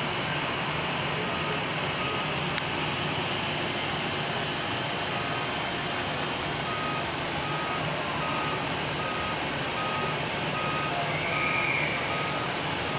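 Aircraft tow tractor's warning beeper sounding short high beeps about twice a second, with a break of a few seconds near the start, over a steady engine rumble and hiss.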